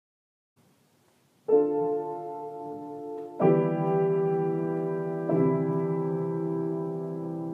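Background piano music: a slow run of sustained chords, entering after a moment of silence and changing about every two seconds.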